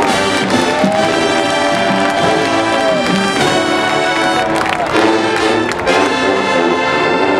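College marching band playing on the field, its brass section of trumpets and trombones to the fore. A long held note bends down about three seconds in.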